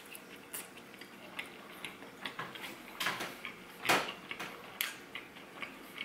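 Close-up chewing of a soft flour-tortilla taco with cheese, salsa and lettuce: a run of wet mouth clicks and smacks, the loudest about four seconds in.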